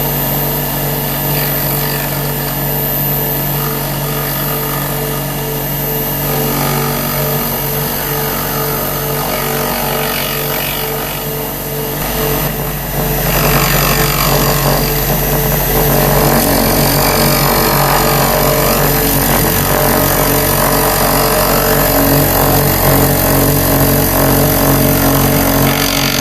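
CNC router spindle running a fly cutter across an aluminium plate, over the steady hum of the vacuum pump holding the plate down. A high steady whine is there throughout, and the sound gets fuller and louder about 12 seconds in.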